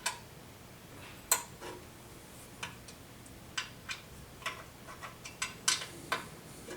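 Metal clicks of an Allen wrench working screws tight: about a dozen short, sharp clicks at uneven intervals, coming quicker in the second half.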